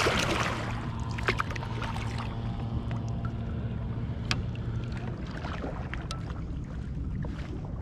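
Kayak paddle strokes: the blade splashing into the water and dripping, with a splash at the start, over a steady low rumble of wind on the microphone.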